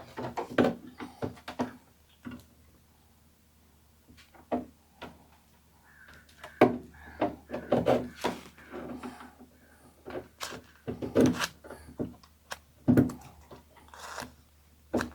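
Irregular clicks and knocks of hands working wires and a bulkhead wiring connector, with a quiet pause of about two seconds early on and busier knocking in the second half.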